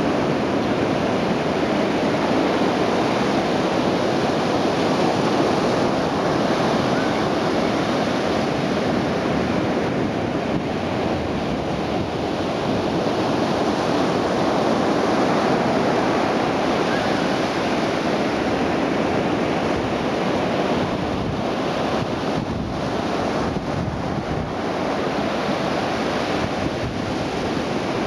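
Ocean surf breaking steadily on a sandy beach in strong onshore wind, the wind buffeting the microphone.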